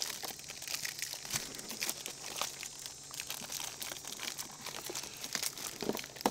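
Clear plastic parts packaging crinkling and tearing as it is pulled free and opened by hand, with a run of irregular crackles.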